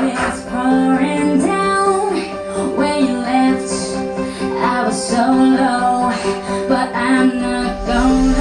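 Pop song playing: a sung vocal line over steady instrumental accompaniment.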